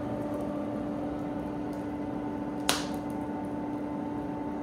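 Coal forge fire burning: a steady rushing noise with a low steady hum beneath it, and a single sharp crackle from the fire about two and a half seconds in.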